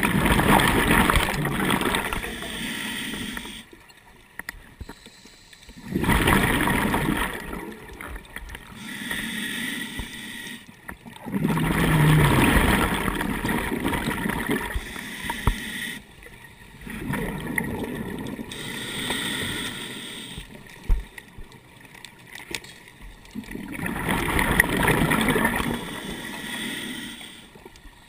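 Scuba diver breathing underwater through a regulator: a breath every four to five seconds, each one a burst of rushing, gurgling air and bubbles, with short quiet pauses in between.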